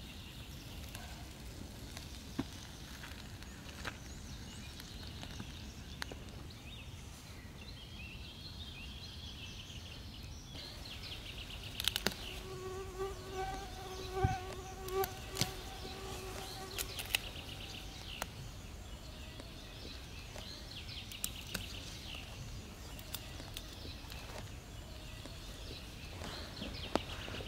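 A flying insect buzzing close by for a few seconds midway, as a steady hum, against forest ambience with birds trilling in the background. There are a few sharp clicks scattered through.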